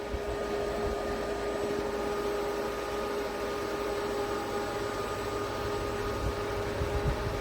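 Portable evaporative air cooler's fan running steadily: a constant motor hum over a hiss of moving air.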